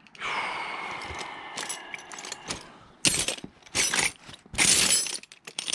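Loose metal hardware clinking and rattling. A ringing metal clank comes about a quarter second in and fades over a couple of seconds, then four loud bursts of jangling follow as the small parts are rummaged through.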